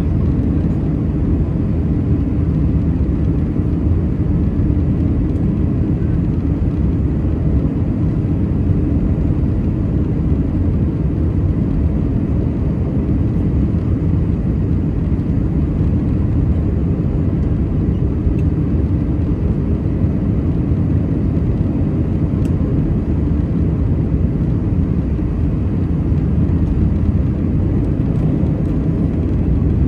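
Steady low rumble of cabin noise inside an Airbus A319 on its landing approach, heard from a window seat over the wing, with the engine and rushing air blended into one even roar.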